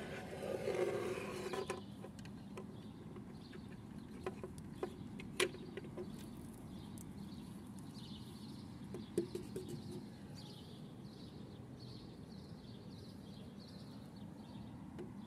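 Handling noise from a small plastic doll's tricycle and a plush-costumed doll: a brief rustle of fabric, then a few sharp light clicks of hard plastic knocking on a wooden tabletop, over a steady low hum.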